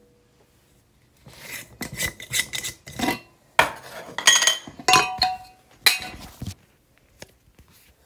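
Glass jar and its lid clinking, scraping and rattling as they are handled, with short ringing clinks, from about a second in until about six and a half seconds, then only a few faint knocks.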